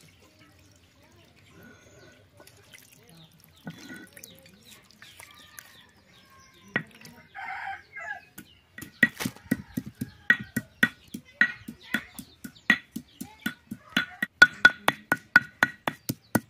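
A hand stone knocking and grinding on a carved stone grinding slab, crushing spices in quick, even strokes of about four a second that start about nine seconds in. Shortly before, a chicken calls once.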